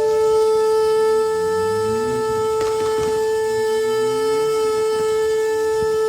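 Shofar (ram's-horn trumpet) blown in one long, steady held note.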